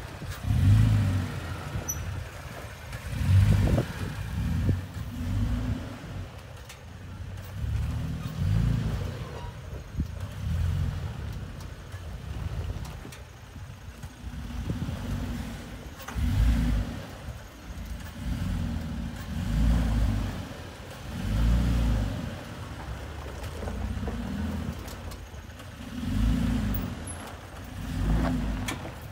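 Third-generation Toyota Tacoma pickup's engine running at crawling speed over rocks. It is a low rumble that swells and eases every couple of seconds as the throttle is fed in and backed off.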